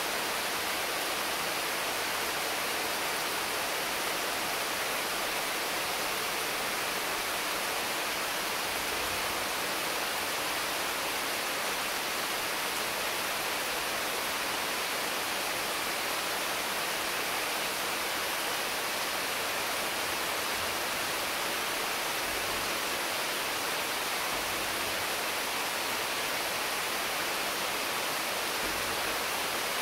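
Intense rain falling steadily on mango and papaya trees, an even, unbroken hiss.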